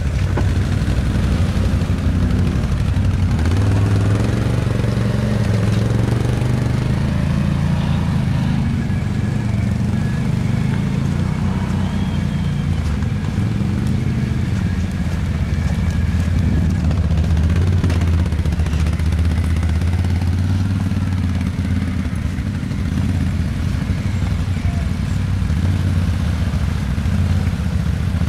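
ATV engine running under way off-road, its pitch rising and falling as the throttle changes.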